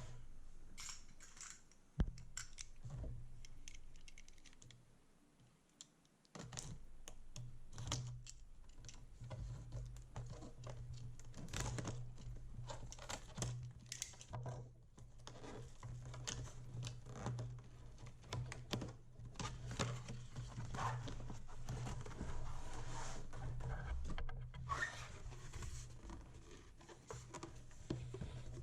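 Cardboard box and packaging being opened and handled by hand: irregular clicks, scratches and crinkling, with one sharp knock about two seconds in and a brief lull a few seconds later.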